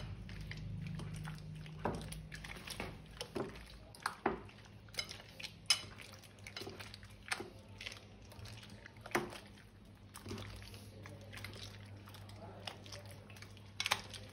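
Thick slime being stirred and squished, giving irregular wet clicks and pops, about a dozen in all, over a faint low hum.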